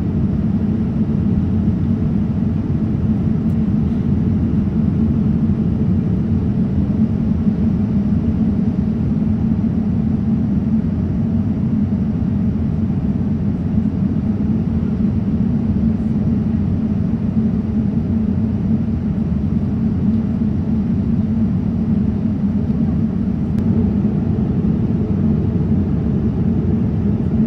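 Steady low roar of a jet airliner in cruise flight, heard inside the cabin: engine and airflow noise, unchanging throughout.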